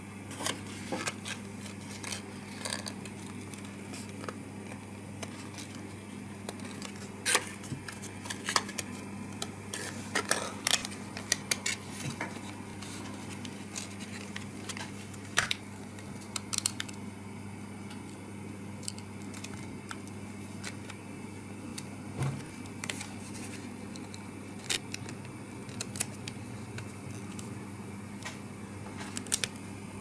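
Thin printed card being creased and folded by hand into a small box, giving irregular sharp clicks, snaps and rustles, busiest in the first half. A steady low hum runs underneath.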